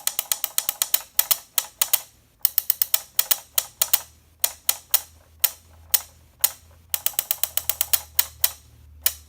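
1996 WACO Caveman alarm clock's motor-driven figures working: sharp mechanical clicks in uneven clusters of several a second, over a low motor hum. The clicking stops near the end.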